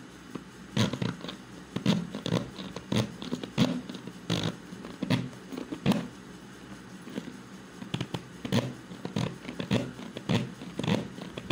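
Plastic push-plunger hand chopper, filled with spinach, pumped by hand: a run of irregular plastic clacks and knocks, about two a second. The chopper is stiff and hardly turns its blade, which the owner puts down to the lid lock not seating properly.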